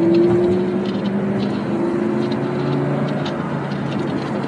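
Car engine running under way, heard from inside a moving car's cabin over road noise. Its note climbs gently and changes pitch a few times.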